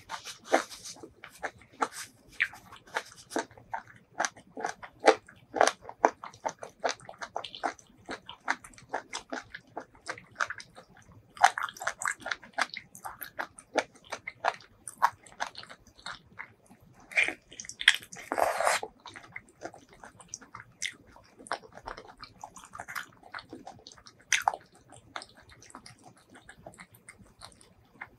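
Close-miked eating sounds: a person biting and chewing sauce-coated food, with many quick wet mouth clicks and smacks. A louder, longer noise comes about eighteen seconds in.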